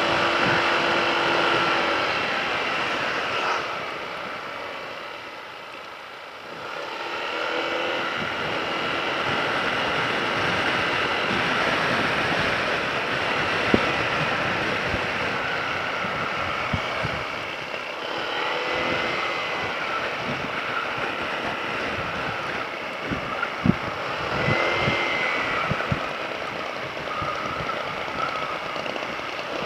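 Motorcycle ride on the road: a steady rush of wind over the microphone with the motorcycle's engine and road noise underneath. It drops quieter for a couple of seconds about four seconds in, then picks back up.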